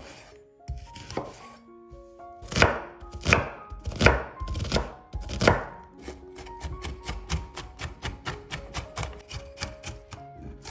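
Knife chopping an onion on a wooden cutting board. A few separate cuts come first, then four loud strokes, then quick, even chopping at about three strokes a second from a little past halfway as the onion is diced fine.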